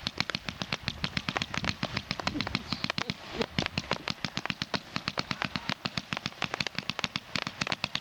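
Fireworks going off as a dense, irregular run of sharp pops and cracks, about ten a second, without a break.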